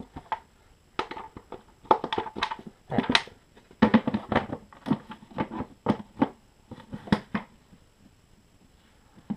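Hard plastic side cover of a Honda EU2000 inverter generator being handled and pushed back into place: a quick run of sharp clicks, knocks and rattles that dies away about three-quarters of the way through.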